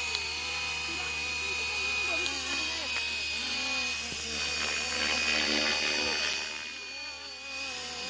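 FW450 electric RC helicopter flying overhead: a steady high-pitched motor whine with rotor noise. It swells to its loudest about five seconds in, then drops away briefly near the end.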